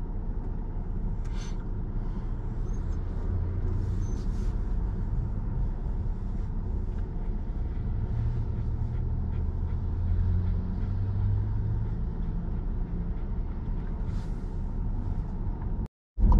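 Car cabin noise while driving: a steady low engine and road rumble. The sound cuts out briefly near the end.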